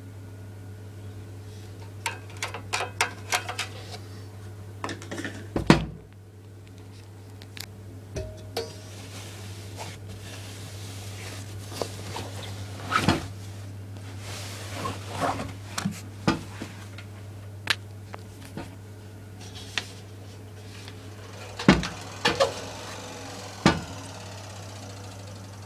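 Irregular clicks, knocks and rattles at a Miele W 435 front-loading washing machine at the end of its wash programme, over a steady low hum. The loudest is one thump about six seconds in.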